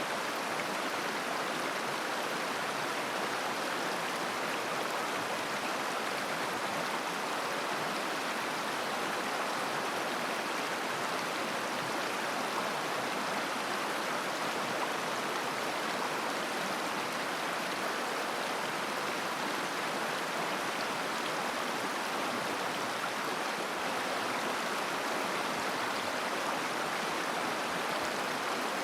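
Mountain river flowing over stones, a steady rushing and babbling of water with no breaks or single events.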